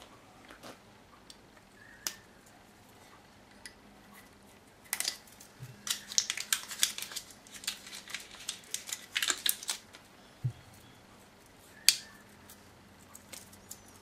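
Crackling, scratching and tearing as the capsule over a wine bottle's cork is cut and peeled from the neck with a Swiss Army knife. The sound comes in a dense run through the middle, with scattered clicks before it and one sharp click near the end.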